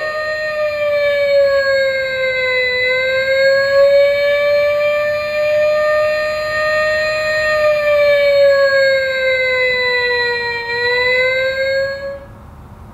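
Electronic siren of a battery-powered toy fire engine, a single wailing tone that slowly falls and rises in pitch, each swing taking a few seconds, then cuts off about a second before the end.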